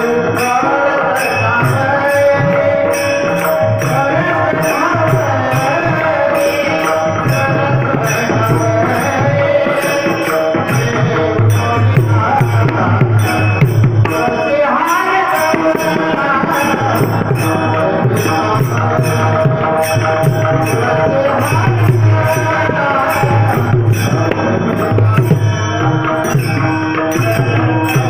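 Devotional Panchpadi bhajan music with a melody over a steady tabla rhythm and sharp, regular high strokes keeping time.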